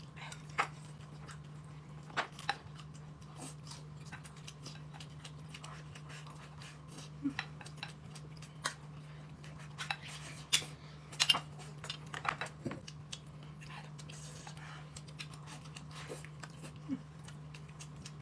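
Chopsticks and spoons clinking against bowls and plates at a meal table: light, irregular clicks every second or two over a steady low hum.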